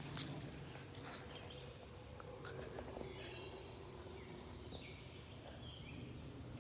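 Faint outdoor ambience: a low steady rumble with a few short, distant bird chirps through the middle, and a few soft clicks near the start.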